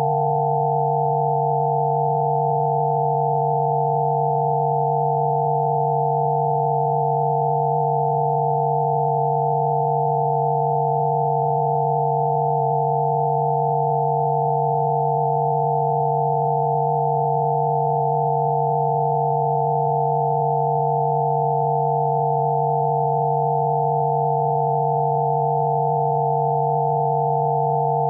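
Electronically generated Rife-frequency sine tones: several pure tones sounding together, one low and a few higher ones close together, held perfectly steady without change.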